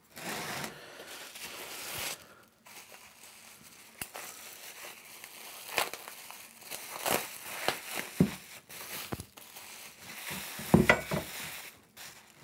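Plastic bubble wrap crinkling and rustling as it is pulled and crumpled off a steel part, with scattered sharp clicks. A few knocks come near the end, the loudest about eleven seconds in.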